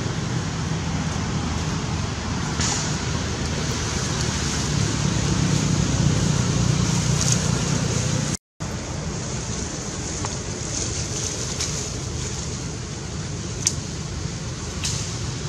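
Steady outdoor background rumble and hiss, with a few faint clicks. It drops out for a moment a little over eight seconds in.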